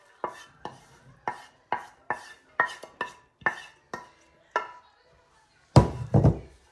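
A wooden spoon knocking against a dish about ten times, roughly twice a second, each knock ringing briefly, as chopped onion and cilantro are scraped off into a stone molcajete. Near the end comes one heavier double thump.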